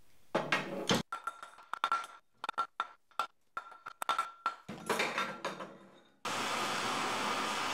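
Irregular metal knocks and clinks with a ringing tone, from the steel drive shell and flange of a Procunier tapping head being knocked and worked apart by hand. About six seconds in, a steady rushing noise starts abruptly.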